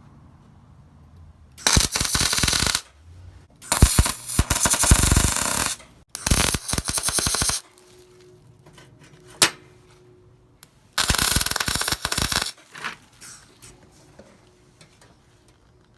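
Welding arc crackling and sputtering in four separate bursts, about one to two seconds each, as short welds are laid on a cut steel brake linkage rod.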